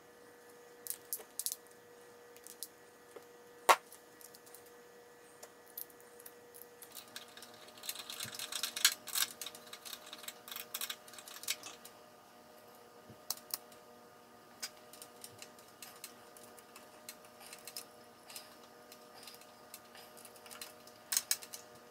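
Scattered light clicks and taps of pliers and small metal parts as a rubber fuel line and inline fuel filter are worked onto a small outboard motor's carburetor. There is one sharp click about four seconds in and a busier patch of clatter in the middle.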